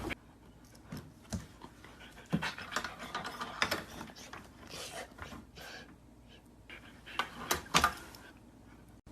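A dog panting in short, irregular breaths, with scattered small clicks and knocks.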